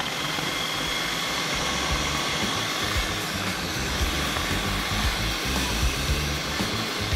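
Electric food processor running steadily, its blade chopping raw fish fillet into paste.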